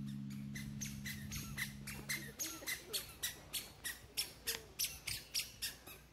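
A rapid run of short, sharp bird squawks, about four a second, growing louder and then fading near the end. A low held tone drops out a little over two seconds in.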